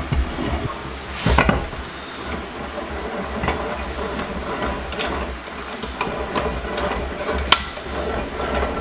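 Hand work on a cast-iron bench vise being reassembled: scattered metal clinks and scraping, with one sharp knock near the end, over a steady low hum.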